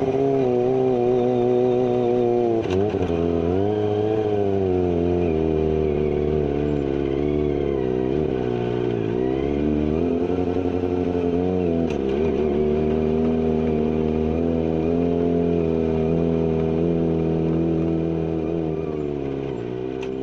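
Kawasaki ZX-25R's 250 cc inline-four running through a carbon GPR full-system exhaust with no dB killer. Engine speed dips and climbs back several times, and the sound fades slightly near the end.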